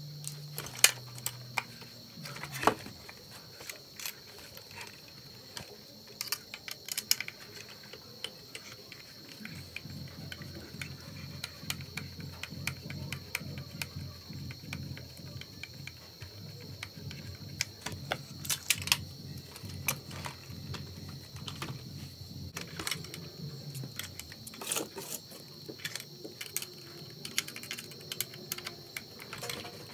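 Scattered clicks and taps of hard plastic parts being handled and a screwdriver turning screws as a Huina 1582 RC dump truck is taken apart.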